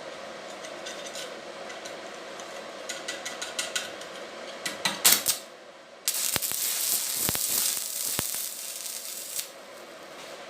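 Light clicking and a few loud knocks, then a loud steady hiss lasting about three and a half seconds that stops suddenly, over a steady low background hum.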